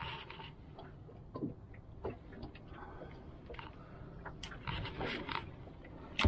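Irregular light clicks and knocks around a small fishing boat's hull and rod gear, over a faint low rumble. They come more often in the second half, with a louder clatter at the very end.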